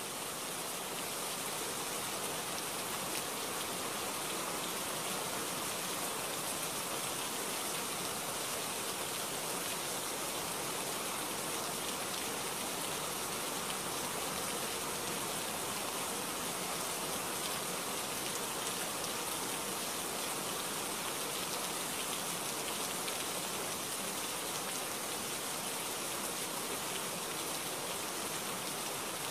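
Steady rain falling: an even hiss of many drops that holds at one level throughout.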